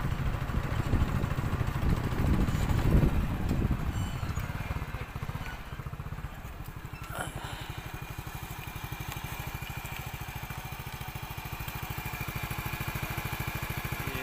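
Motorcycle engine idling with a low, even pulse, louder and uneven for the first four seconds and then steady. A faint single click about seven seconds in.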